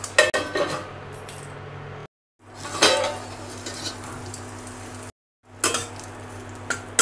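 A steel lid clanking down onto a stainless steel kadai, then lifted off with a clatter about three seconds in, with a few light metal clicks near the end. A steady low hum, from the induction cooktop, runs beneath.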